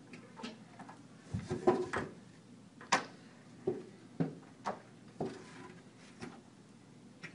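Irregular knocks and clunks of prosthetic legs and a hand on a wall handrail as a man with prosthetic legs pushes himself up off the floor. There is a quick cluster of knocks about a second and a half in, then single knocks every half second to a second.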